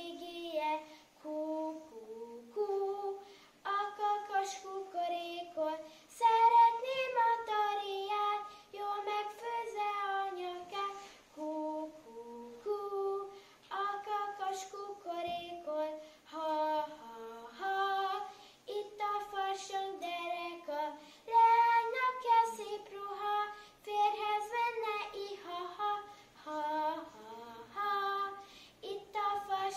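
A young boy of about eight singing solo and unaccompanied, a melody of held notes that steps up and down, with short breaths between phrases.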